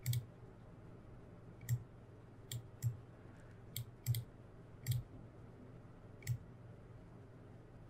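Computer mouse clicking about eight times at irregular intervals.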